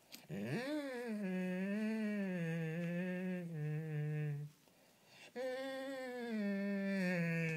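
Irish setter moaning in two long, drawn-out calls: the first swoops up at its start and then wavers, and the second begins about five seconds in. It is a sulking, begging dog's vocal grumble.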